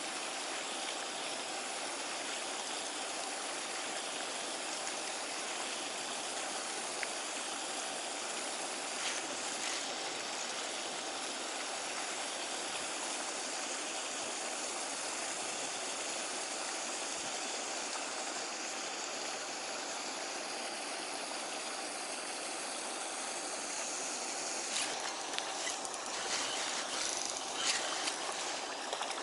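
Steady rush of running water, with a few light clicks near the end.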